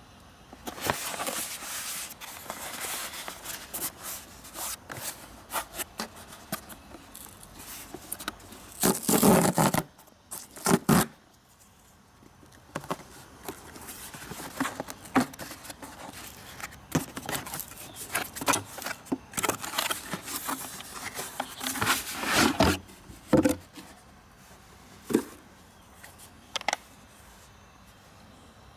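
Cardboard shipping box being handled and opened by hand, then the plastic case inside handled: irregular scraping and rustling of cardboard with clicks and scuffs. The loudest scuffs come about nine and eleven seconds in and again around twenty-two seconds.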